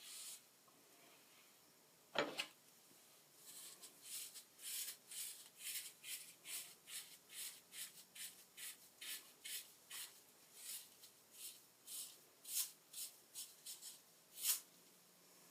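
Faint, short rasping strokes of a teasing comb backcombing hair, about two a second, starting a few seconds in, with a single louder sound about two seconds in.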